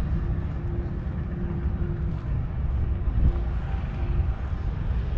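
Open-air rumble of wind buffeting the microphone, with a faint distant engine hum that comes and goes.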